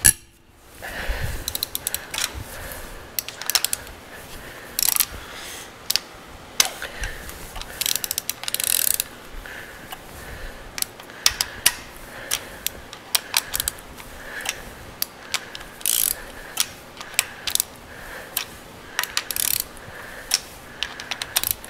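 Hand ratchet clicking in short, irregular runs as the head bolts of a Toyota 2JZ-GE cylinder head are backed off one after another. The bolts are already broken free of their torque, so the ratchet turns them easily.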